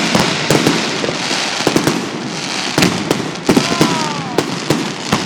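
Fireworks finale: aerial shells bursting with sharp bangs in quick succession, about ten in five seconds, over a continuous crackle of burning stars.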